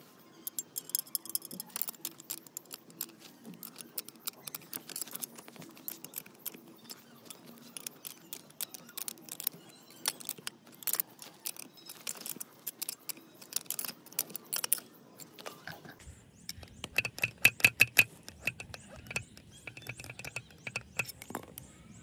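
Many sharp, irregular clicks and clinks of handled metal. About two-thirds of the way in they give way to a quicker, louder run of clicks with a faint ringing tone and a low rumble beneath.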